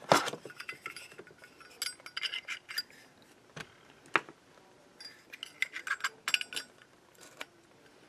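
Small metallic clinks, taps and scrapes of a Zippo lighter and its insert being handled while it is refilled with fuel, in scattered bunches with a few sharp clicks.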